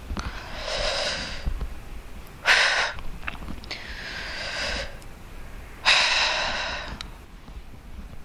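A woman breathing deeply and audibly through her mouth: two slow breath cycles, each a breath drawn in that swells up, followed by a sharper, louder breath out.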